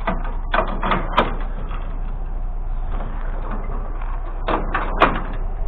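A few short, sharp knocks, about half a second in, a second in and again near the end, over a steady low rumble.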